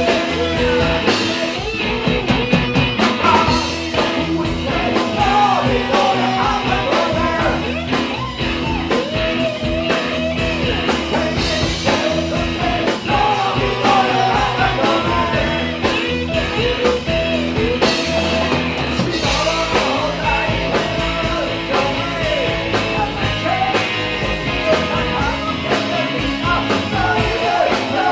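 Rock band playing: electric guitar over a steady drum-kit beat, with a wavering melodic line on top.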